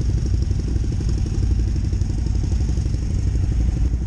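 Adventure motorcycle engine idling, a steady low rumble with an even pulse.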